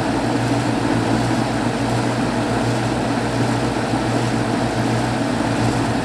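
Goodman GHP15M 5-ton two-stage packaged heat pump running on its low speed: a steady low hum with an even rush of fan air over it.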